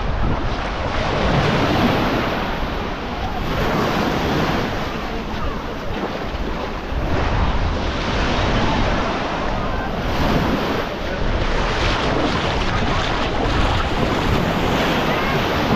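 Baltic Sea surf washing onto the beach, surging and easing every few seconds, with wind buffeting the microphone.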